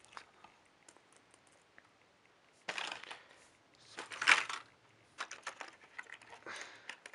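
Hands handling small plastic Thomas Minis toy engines and their packaging: short rustles, the loudest about four seconds in, then a run of light plastic clicks.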